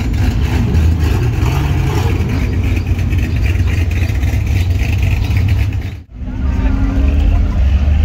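Pickup truck engines and exhausts running with a steady low rumble as the trucks drive slowly past. The sound drops out sharply for an instant about six seconds in, then the rumble resumes.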